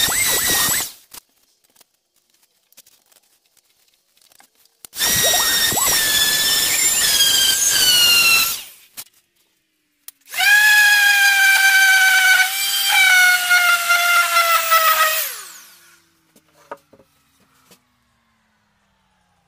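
Random orbital sander sanding a wooden bowtie inlay flush with the board, running in three bursts with a high whine whose pitch drifts downward as it works. The first burst stops about a second in. The second runs from about five to eight and a half seconds. The last, from about ten to fifteen seconds, winds down with a falling pitch as the sander stops.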